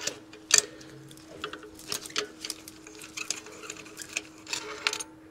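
Ratchet clicking in short, irregular runs, with light metal clinks, as a magnetic spark plug socket unscrews and lifts out a spark plug. A faint steady hum runs underneath.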